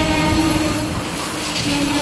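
Amtrak Superliner bi-level passenger cars rolling past at close range: a steady rumble of wheels on rail, with a continuous squealing tone that dips in pitch briefly near the end.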